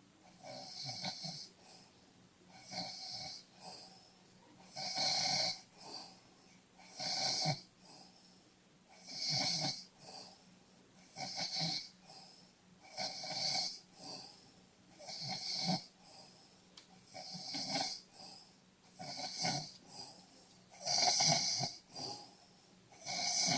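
Snoring in a steady rhythm, a snore about every two seconds, some louder than others.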